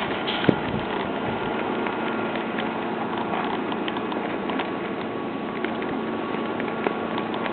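Steady machinery noise with a faint hum and scattered light clicks and knocks, typical of the Big Chute marine railway carriage hauling a large boat on its rails.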